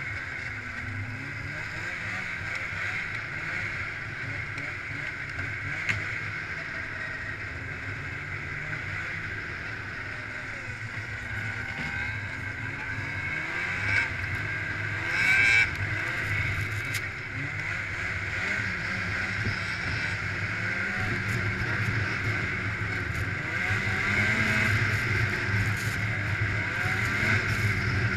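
Snowmobile running along a trail, its engine pitch rising and falling with the throttle. A brief loud knock comes about halfway through.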